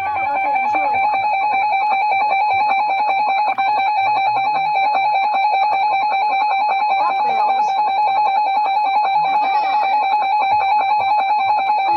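Emergency Alert System attention tone: a steady, unbroken electronic alarm tone signalling that an emergency warning message is about to be broadcast.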